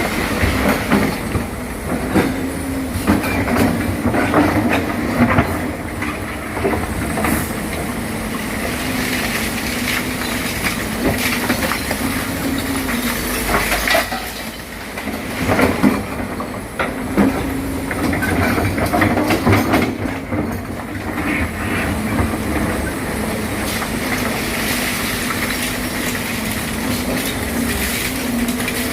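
Crawler excavator working: its diesel engine runs with a steady hum under repeated metallic clanks and knocks from the steel tracks and the working gear.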